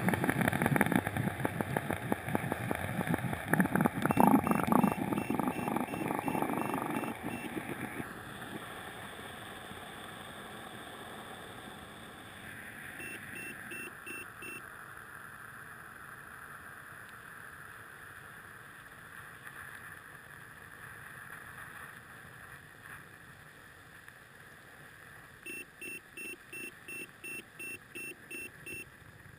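Muffled underwater sound heard through a GoPro's waterproof housing after a quadcopter crash into a lake. A loud churning of water in the first several seconds fades to a low steady hiss. Two runs of quick electronic beeps, about three a second, come a little before the middle and again near the end.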